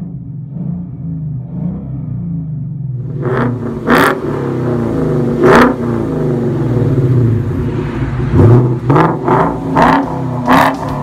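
2017 Ford Mustang GT's 5.0 V8 through a Kinney's Street Demon performance exhaust. It starts as a low, uneven burble, then the engine is blipped sharply about eight times, with a quick run of revs in the last three seconds.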